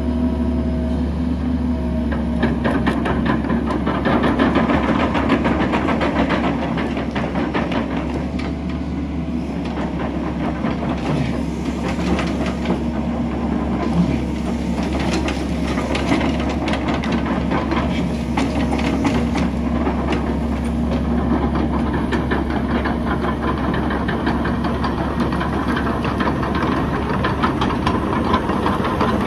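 Caterpillar 308D mini excavator's diesel engine running steadily while its tracks clatter with a dense run of metallic clicks and clanks, thickest through the middle of the stretch.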